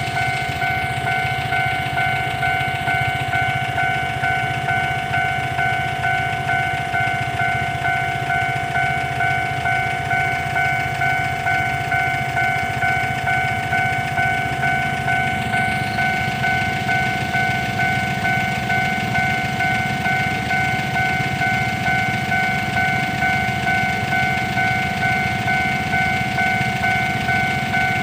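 Level-crossing warning bell ringing, an electronic ding repeated evenly about twice a second with no break.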